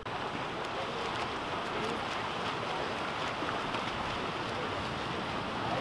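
Steady splashing of several water polo players swimming in a pool, with faint distant voices.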